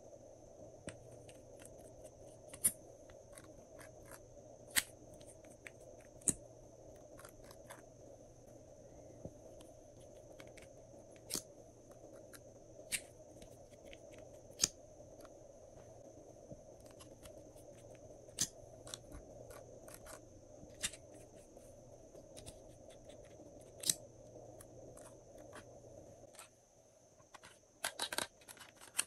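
Sharp, scattered clicks and taps of small hard-plastic toy cosmetic bottles and cases being handled, their caps pulled and set down, with a cluster of louder clicks near the end as a plastic heart-shaped compact is handled. Under them runs a faint steady hum that stops shortly before the end.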